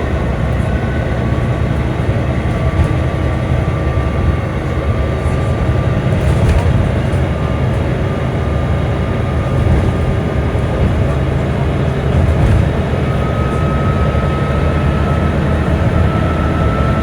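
Volvo B9TL double-decker bus running, a steady low rumble with a thin whine that drifts slowly in pitch and steps up higher about two-thirds of the way through. The whine is the kind of odd sound the video is about.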